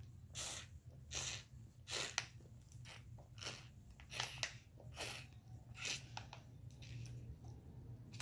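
A child drinking from a foil juice pouch: about ten short, noisy sucking sounds, with crinkling of the foil, coming every half second to second.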